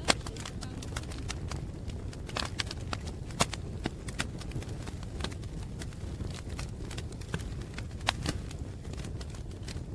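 Wood fire crackling: irregular sharp pops and snaps over a steady low rumble, with the loudest pops just after the start, about three and a half seconds in and about eight seconds in.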